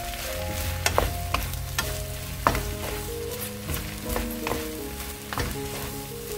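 Sliced onions and green chilies sizzling as they are stir-fried in a nonstick wok, tossed with wooden utensils that knock and scrape against the pan several times. The sharpest knock comes about two and a half seconds in. A soft background tune plays underneath.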